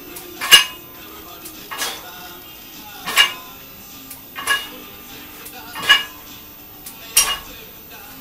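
Metal gym equipment on a power rack clinking at each repetition of an exercise: six evenly spaced clinks, about one every 1.3 seconds.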